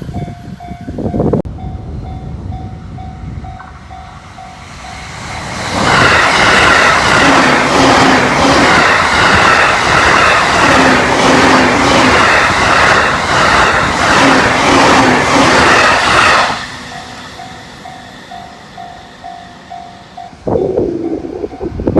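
A Japanese level-crossing warning bell ringing in a quick, even ding-ding rhythm, then a Joban Line train passing the crossing at high speed, a loud steady rush of wheels on rail lasting about ten seconds that stops suddenly. After it the crossing bell is heard again, and a burst of clatter starts near the end.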